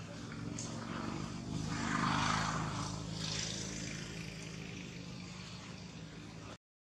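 Droning engine of a passing aircraft: a steady hum that swells about two seconds in and then fades, cut off abruptly near the end.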